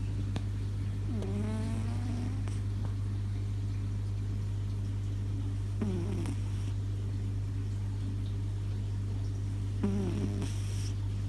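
A Scottish Fold cat snoring, heavily amplified: three short pitched snores come about four seconds apart, in time with its breathing. A steady hum from the boosted recording runs under them.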